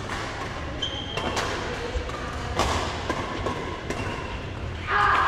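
Badminton rally: rackets striking the shuttlecock with sharp hits a little over a second apart, between them sneakers squeaking on the court floor and footfalls, with a louder sound near the end.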